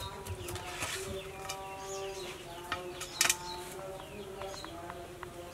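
Birds chirping and farm animals calling, with one short sharp clatter a little over three seconds in.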